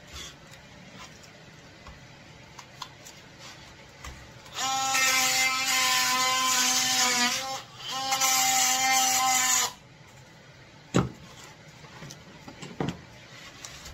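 Cordless oscillating multi-tool buzzing steadily as it cuts away expanding spray foam packed around lithium battery cells. It runs twice, about three seconds and then two, with a short break between, and stops suddenly. Two sharp knocks follow near the end as the foam is pried loose.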